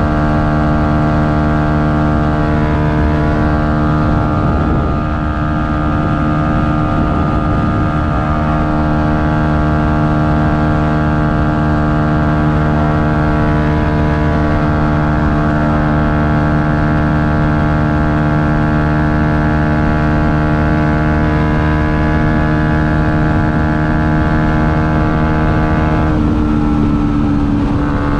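Yamaha MT-125's single-cylinder four-stroke engine held at steady high revs at full throttle. Near the end the pitch shifts and begins to fall as the engine eases off.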